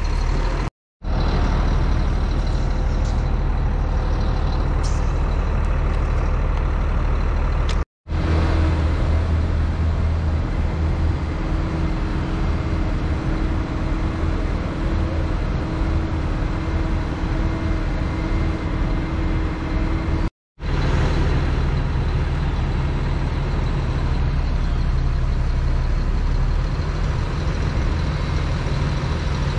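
Bucket truck engine running steadily, a low even drone that keeps the aerial lift's booms powered. The sound breaks off into brief silence three times, at about one, eight and twenty seconds in.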